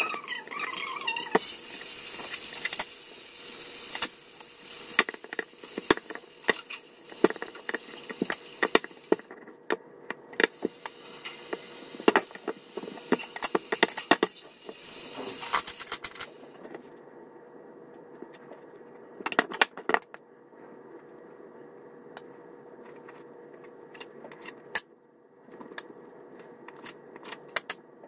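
A metal cleaver knocking on a wooden chopping board as it cuts dough into pieces, with many quick knocks through the first half, then fewer, scattered taps. A faint steady hum runs underneath.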